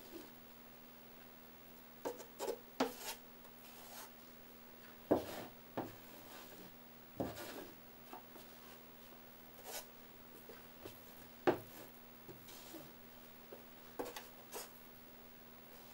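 Drywall mud being scraped and wiped into an inside drywall corner with a corner spoon: short, irregular scrapes and knocks, about a dozen, over a steady faint hum.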